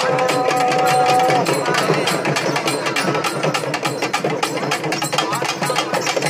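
Procession drums beating a fast, steady rhythm of several strokes a second, with a held pitched tone over them for the first second and a half and crowd voices underneath.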